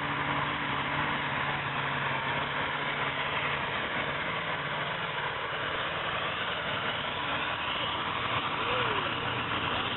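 Pulling tractor's engine idling steadily before its pull, its low engine note fading after about four seconds, over a steady background noise.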